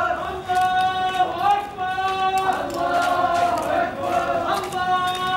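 Men's voices chanting in unison, a sung chant of held notes that glide into each new note.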